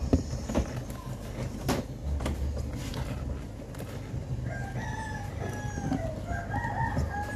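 A few sharp knocks in the first three seconds, then a rooster crows, one long call of about three seconds starting a little past halfway.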